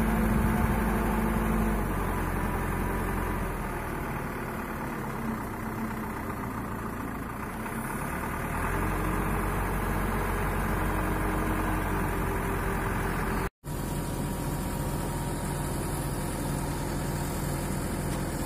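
Diesel truck engine running steadily at idle, a little quieter for a few seconds about a quarter of the way in, then back up; the sound drops out for an instant about three quarters through.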